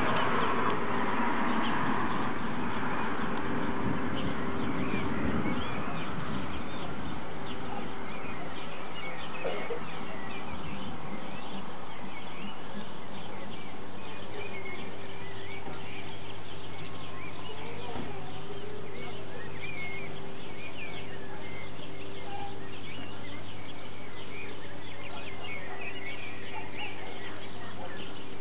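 Outdoor ambience of many small bird chirps over a steady background hiss and low hum. A louder rushing noise fades out in the first few seconds.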